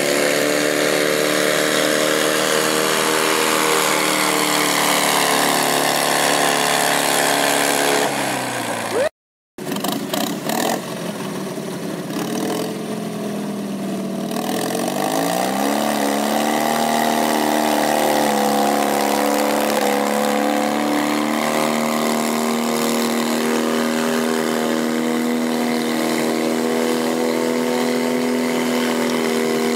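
Modified garden pulling tractor engine running at high revs, its pitch slowly sagging as it drags the weight sled. After a sudden break, an engine revs up about halfway through and holds a steady high note.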